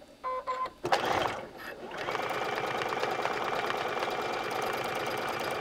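Computerized sewing machine beeping twice, then starting up about two seconds in and running steadily at speed, its needle stitching rapidly while free-motion quilting (stippling) through the fabric.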